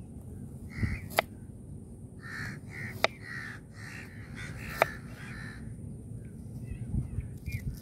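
A crow cawing in a run of harsh calls, with three sharp clicks about two seconds apart as a knife slices through small red onions onto a plastic cutting board.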